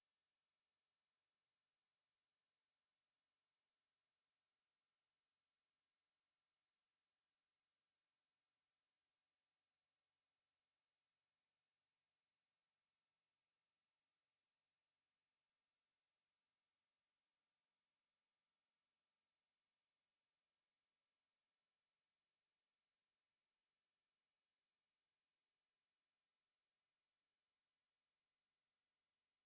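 A steady, unbroken pure sine tone at 5976 Hz, a single high-pitched whistle-like test tone for checking speakers or headphones.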